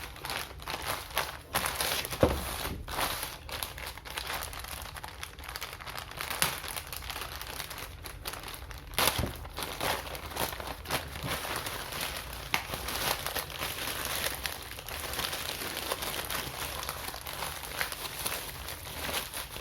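Phone packaging being handled and opened: crinkling wrap with scattered clicks and light knocks, the loudest about two seconds and nine seconds in.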